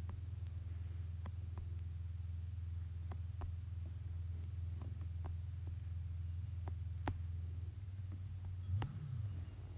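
Steady low hum with faint clicks scattered through it, the loudest about seven seconds in, and a brief low bump near the end.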